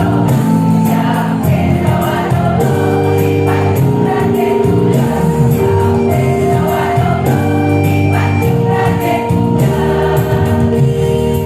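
Women's choir singing sustained, held chords over instrumental accompaniment.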